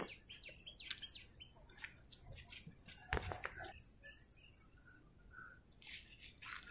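Birds chirping in many short, scattered notes over a steady high-pitched insect drone, with one sharp click about three seconds in.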